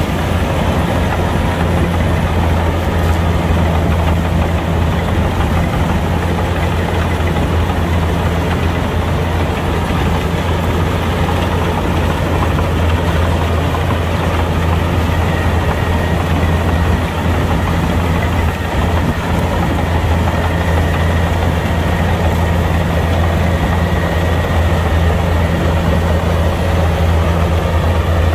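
Kubota combine harvester's diesel engine running steadily with a deep, unchanging drone.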